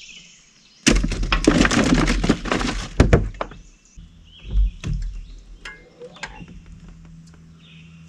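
About a second in, a burst of clattering and rattling knocks lasts a couple of seconds, ending in one sharp knock: gear being handled in a small fishing boat. Then a low steady hum sets in, with a few faint bird chirps.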